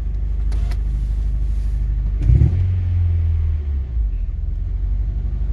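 Honda Prelude's four-cylinder engine idling, given a short blip of the throttle about two seconds in that raises the engine note for about a second before it falls back to idle. The idle is uneven, "off and on", from a misfire that new spark plugs may not have cured.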